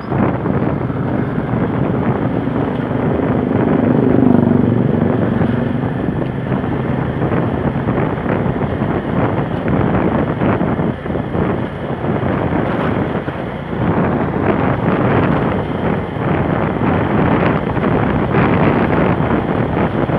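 Wind buffeting the microphone of a moving motorcycle, with the bike's engine running underneath. It swells about four seconds in as an oncoming car passes.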